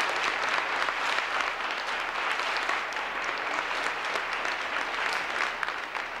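Audience applauding, many hands clapping at once in a dense steady patter that slowly fades toward the end.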